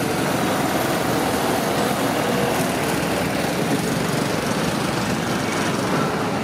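An engine running with a steady drone that holds an even level throughout.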